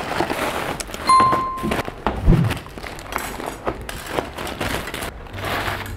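Thin plastic carrier bags rustling and crinkling while takeout food is unpacked, with food containers set down on a hard tabletop. There is a short ringing tone about a second in, and a heavy thud at about two and a half seconds.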